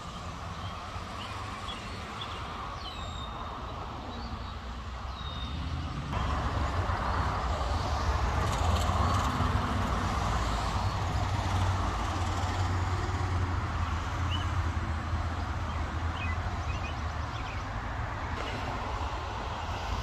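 Steady rumble of road traffic going by, growing louder about six seconds in and holding there.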